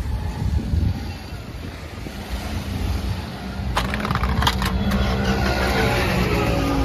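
Low rumble of vehicle engines idling in a stopped traffic jam, with a cluster of sharp clicks about four seconds in and a steadier pitched hum coming up near the end.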